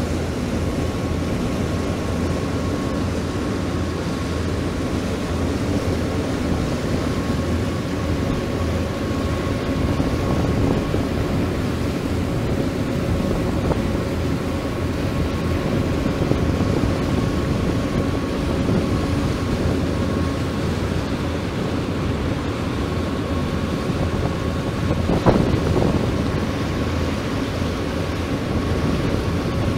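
A boat's engine running steadily under way, with a constant whine over the rush of water. A single sharp knock about 25 seconds in.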